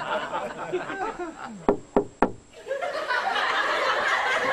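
Three quick, sharp knocks on the car, a little under a second apart in all, as someone raps on it to get the driver's attention.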